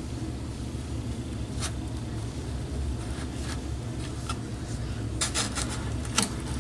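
Light clicks and scrapes of small parts being handled, a few spread out and a quick cluster near the end, over a steady low hum.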